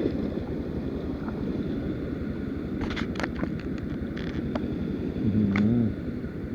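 Enduro dirt bike engine running at low revs with a steady, finely pulsing rumble while the bike works over rock, with a quick cluster of sharp clicks and knocks about halfway through.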